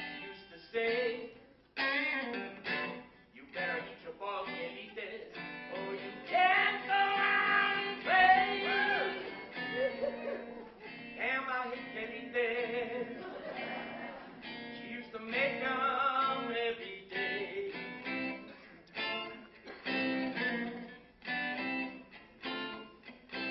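A song: acoustic guitar strummed in a steady rhythm, with a voice singing over it in the middle of the stretch.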